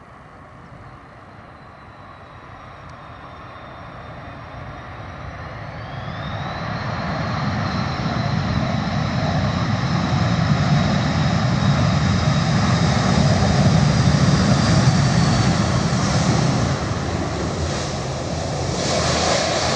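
Airbus A330 jet engines on the landing rollout. Their whine rises in pitch about six seconds in as the engines spool up, and the sound grows loud before easing a little near the end.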